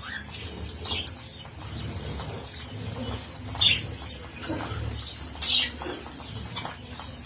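A bird giving a few short, high chirps a second or two apart, over a low steady hum.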